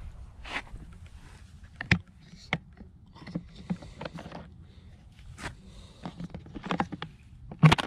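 Hard plastic clicks and knocks from a Kärcher OC 3 portable pressure washer being handled as its carrying handle is swung down around the body, a dozen or so irregular clicks with the loudest knock near the end. A low rumble runs underneath.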